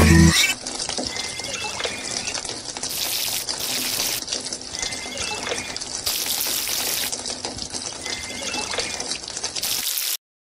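Water poured and splashed from a small plastic cup into a shallow plastic toy pond, in several short pours. The sound cuts off briefly near the end.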